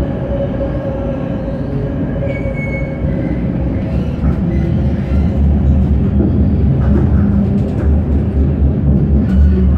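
Tram running along its rails, heard from inside the car: a steady low rumble of wheels and motor with a constant hum, and a brief high squeal about two and a half seconds in.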